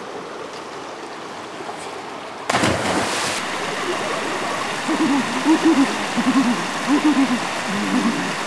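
A person dropping off a rope swing into a lake: a loud splash about two and a half seconds in, then the water churning and washing around him.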